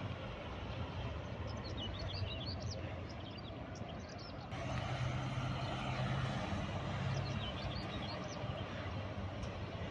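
Steady low rumble with a hiss over it, stepping up abruptly about halfway through. Small birds chirp in short bursts early on and again near the end.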